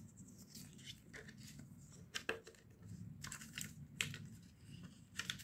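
Faint handling sounds of a cardboard Makeup Revolution eyeshadow palette being turned over in the hands: scattered light taps and rustles of card.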